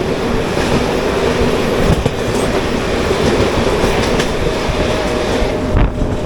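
Mumbai suburban local train running on its rails, heard from on board: a steady loud rumble of wheels and carriage with scattered knocks, two of them stronger, at about two seconds and near the end.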